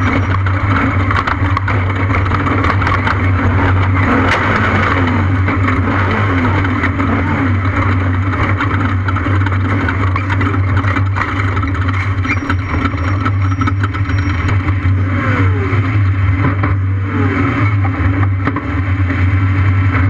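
Off-road race vehicle under way at speed: a loud, steady engine drone with constant rattling and clatter over it, and the pitch sliding now and then.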